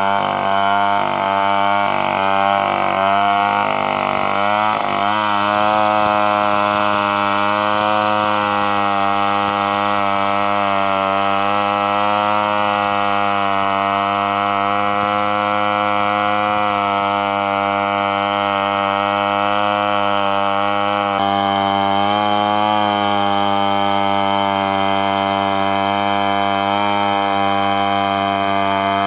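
Two-stroke chainsaw running at full throttle, ripping lengthwise through a coconut palm log in freehand milling. Its note wavers for the first few seconds, then holds steady under load.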